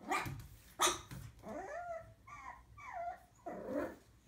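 Pug puppy barking at her own reflection in a mirror: two sharp barks right at the start, then a string of high yelps that rise and fall, and another bark near the end.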